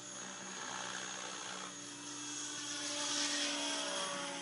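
A remote-controlled copter's electric motors and rotors whining steadily in flight, a little louder about three seconds in.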